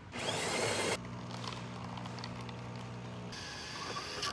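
Jura X8 automatic coffee machine making a drink: a loud noisy burst of less than a second, typical of the built-in grinder, then the pump humming steadily, then a hissier sound near the end as the coffee and milk dispense into the cup.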